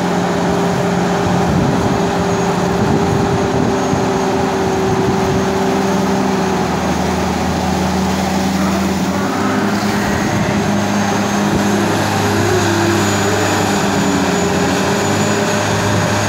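Tata Hitachi EX600 hydraulic excavator's diesel engine running steadily under working load, its note shifting a few times as the bucket is lifted out of the water and swung.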